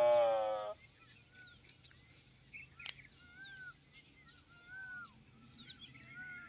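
A camel calf's long moaning bellow that ends under a second in. Then faint bird calls follow: short whistled chirps and glides.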